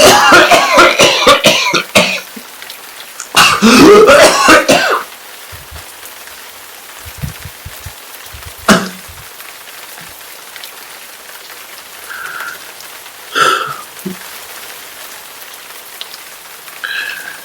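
A man coughing hard in two fits, the second about three seconds in, over steady rain. Later comes a single sharp click and a few brief, fainter sounds.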